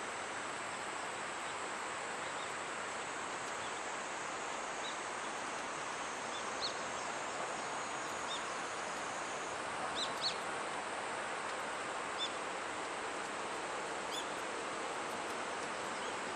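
Steady outdoor background hiss with short, high bird chirps scattered through it, two close together about ten seconds in being the loudest.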